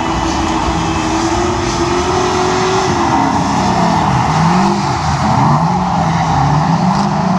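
A pack of drift cars sliding around the track together, engines revving with a note held high at first that drops about three seconds in and then wavers up and down, over a steady wash of tyre noise.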